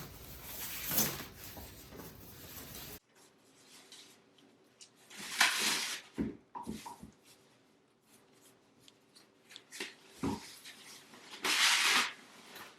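Rustling and handling of monitor packaging during unboxing: a stretch of hiss that cuts off abruptly, then scattered soft knocks and two louder short bursts of rustling.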